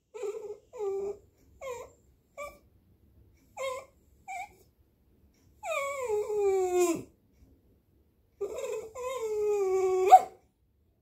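Piebald dachshund whining for attention: six short whines, then two long drawn-out whines that slide down in pitch, the last ending in a sharp upward squeak.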